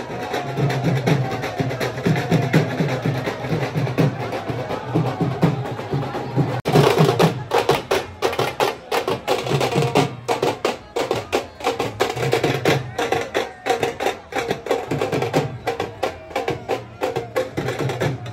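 Procession music: dholak hand drums beating a fast, driving rhythm. For the first six seconds or so, singing carries over the drums. From about seven seconds in, sharp rapid drum strikes take over.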